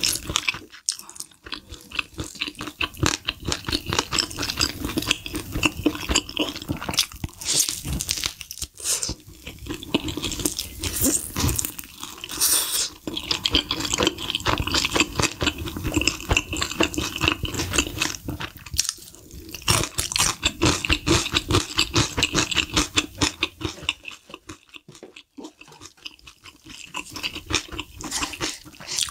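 Close-miked crunching and chewing of sauced fried chicken, many small crisp crunches in quick succession with a short lull near the end.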